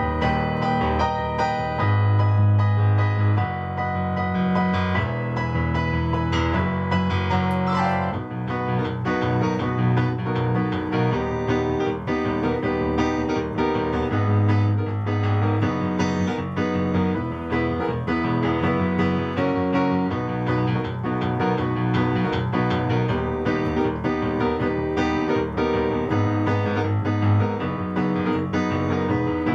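Yamaha CP-80 electric grand piano being played continuously: chords over repeated low bass notes.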